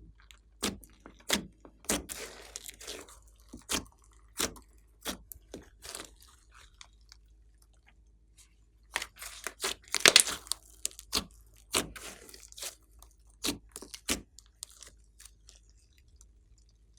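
Glossy slime being squeezed and kneaded by hand, giving a string of sharp wet pops and crackles, with a dense cluster about nine to ten seconds in.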